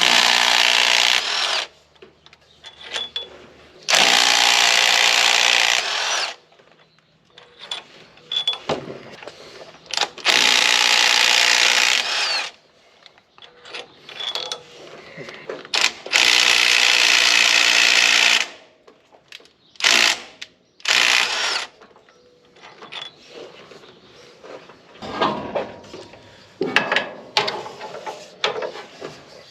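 Impact wrench hammering in four long bursts of about two seconds each, then two short blips, with tools clanking in between. It is working against a very tight bolt that it is not strong enough to break loose.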